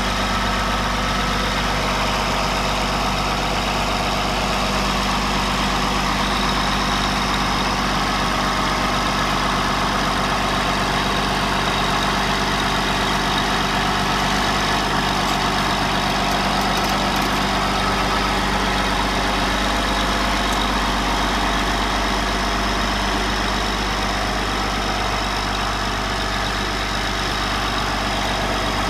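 Caterpillar D8T bulldozer's six-cylinder diesel engine running steadily as the dozer pushes a concrete boat ramp slab.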